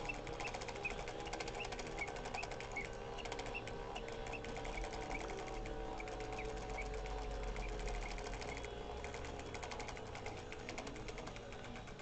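Clockwork singing-bird automaton in a brass birdcage running: the movement's fast, even clicking under whistled tones from its bellows-and-whistle song, with short high chirps about twice a second in the first few seconds.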